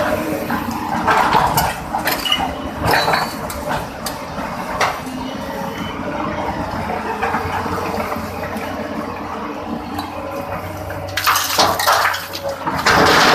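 Excavator engine running steadily, with scattered metallic clinks and knocks over it and a loud burst of rushing noise near the end.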